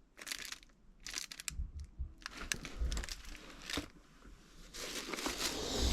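Crinkling and rustling of the wrapping on a packaged firecracker roll as it is handled, in irregular crackly bursts that get busier and louder in the second half.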